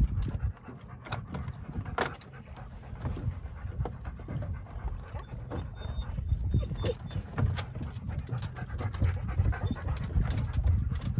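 Dogs panting, over a low rumble of wind on the microphone, with scattered clicks and knocks from the bow-mounted trolling motor being handled and lowered.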